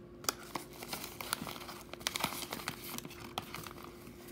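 Paper crinkling and rustling in scattered sharp crackles as a torn-open paper mailer envelope is handled and a folded paper receipt is pulled out and unfolded.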